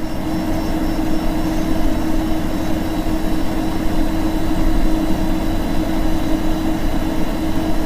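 Steady, loud rush of radio static with a constant low hum from a NOAA weather radio receiver, with no broadcast voice.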